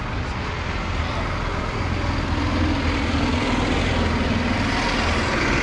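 A motor vehicle's engine running steadily, a low rumble that grows a little stronger about two seconds in, over outdoor crowd background.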